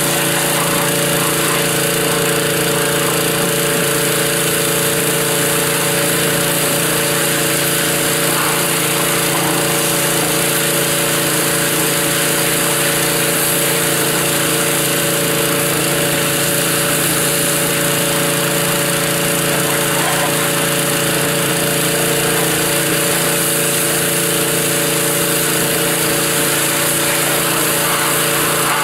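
Pressure washer running steadily, a constant motor hum under the hiss of its water spray.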